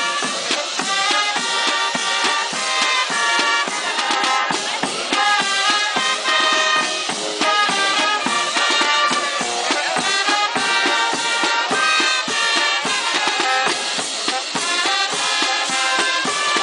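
Charanga band of brass and drums playing a pasodoble: brass carrying the melody over a steady marching beat of bass drum and snare.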